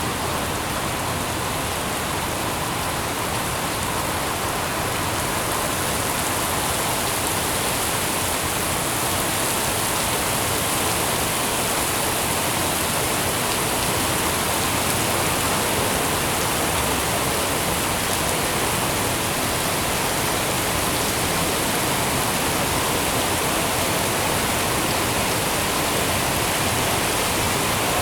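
Steady heavy rain falling, an even hiss with no separate drops standing out.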